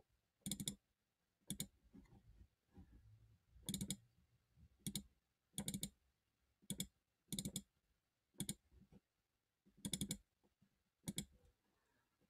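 Quiet computer mouse and keyboard clicks in short clusters of two to four, about once a second, as words in a document are selected and set in bold.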